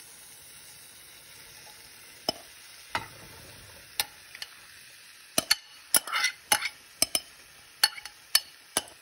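Faint steady sizzle of mushrooms frying in a metal kadai. Chopped spinach is dropped in, then a spatula clicks and scrapes against the pan in a quick run of sharp taps as it is stirred, mostly in the second half.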